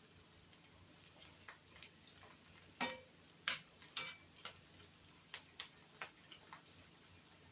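Onions cooking in hot oil in a skillet: scattered pops and clicks, a few louder sharp ones with a brief metallic ring around the middle.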